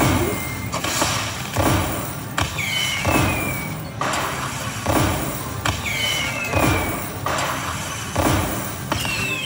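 Video slot machine's bonus-round sound effects: a steady thudding beat about every 0.8 s, with a falling whistle-like tone every few seconds, as the bonus prize meter counts up.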